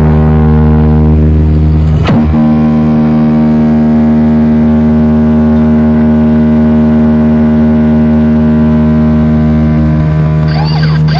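A loud sound system giving out a steady electronic drone of several held tones, which shifts to a new chord about two seconds in, with brief sliding sounds near the end.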